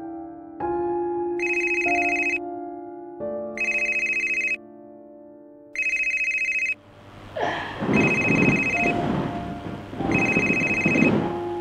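Mobile phone ringtone ringing five times, each ring about a second long, over slow, sad piano notes. In the second half a louder rustling, breathy noise joins in under the last two rings.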